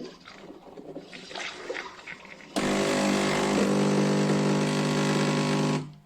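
Cecotec Power Instant-ccino semi-automatic coffee maker running: a loud steady pump hum with a hiss starts about two and a half seconds in and cuts off suddenly near the end. Before it come a few light clicks and knocks.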